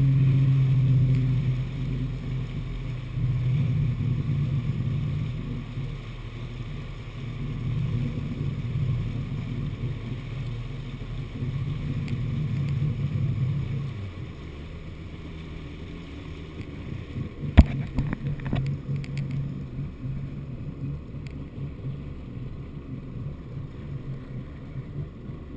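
Two-stroke jet ski engine running under throttle, its note rising and falling, with water rushing under the hull. About halfway through it eases off to a quieter, lower run as the craft slows, and a sharp knock comes a few seconds later.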